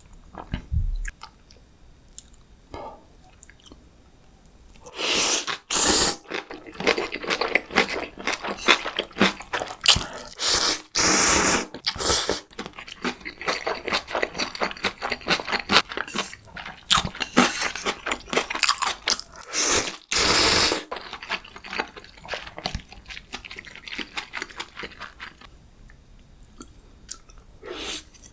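Close-miked eating of ramyeon and gimbap: chewing and crunching, with only a few small clicks at first. It grows dense and loud from about five seconds in, with several longer loud stretches, and eases into quieter chewing after about twenty seconds.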